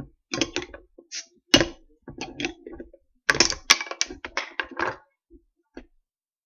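Metal bottle opener clicking against the crown cap of a glass club soda bottle and prying it off, with one sharp snap about one and a half seconds in. A quicker run of clicks and clatter follows from about three to five seconds in.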